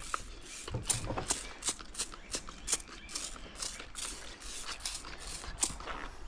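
Soft, irregular rustling and scraping of a large microfibre drying towel being handled, a few short rustles each second.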